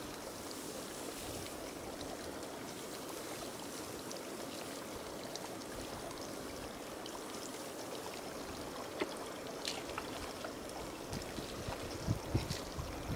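Steady rush of running water, like a small stream or irrigation channel beside a wet rice paddy. Near the end come a few sharp rustles and snaps, as of footsteps through cut rice stubble.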